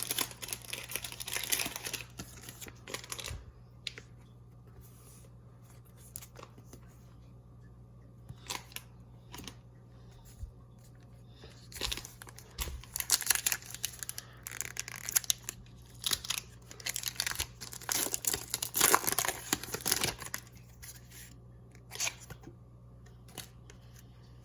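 A foil trading-card booster pack wrapper being torn open and crinkled, in several crackly bursts with light handling clicks between them, over a faint steady low hum.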